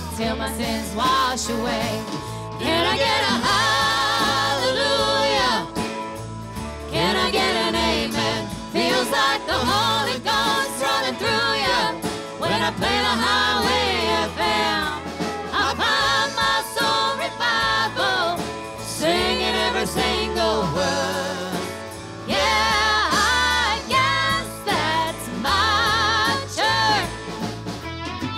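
Live country band playing, with a woman singing lead in phrases over electric and acoustic guitars and drums.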